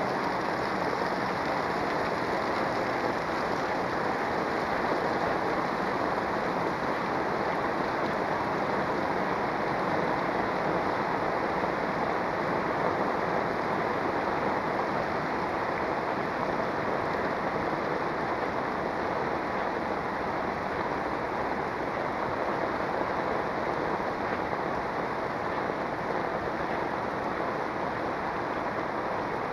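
Heavy rain falling steadily on a paved street: a dense, even hiss that neither rises nor falls.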